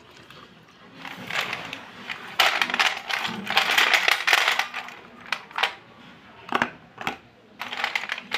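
Broken white slate pencils clattering and clinking against each other and a stainless steel plate as a hand stirs through them. After the main burst come a few separate sharp clicks.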